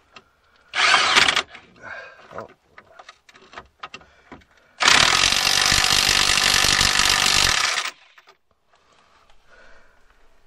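Impact wrench tightening a steering-rack mounting bolt: a short burst about a second in, light clicks and knocks, then a steady run of about three seconds that cuts off suddenly.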